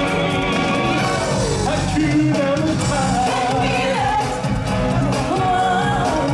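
Live stage-show music: voices singing a melody over a full band backing with a steady beat.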